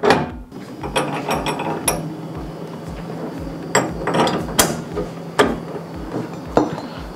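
Empero No. 22 meat grinder's auger shaft being turned and seated back into its metal barrel by hand: irregular metal clicking and scraping with a few sharper knocks, over a steady low hum.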